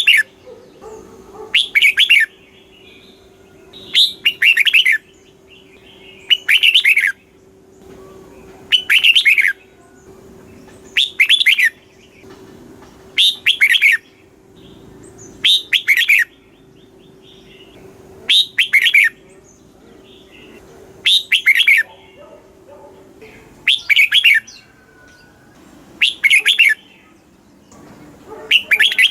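Red-whiskered bulbul singing short, bright whistled phrases, one roughly every two seconds.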